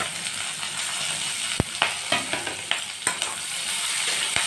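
Chopped onions sizzling in a little hot oil in a metal kadai. A spatula stirs them, clicking and scraping against the pan several times. The onions are being fried only until soft.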